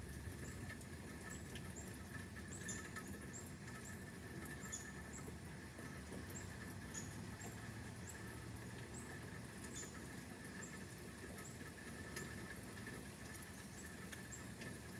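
Outdoor ambience during a thunderstorm: a low, steady rush, a steady high-pitched drone, and short, very high chirps falling in pitch that come irregularly about once a second.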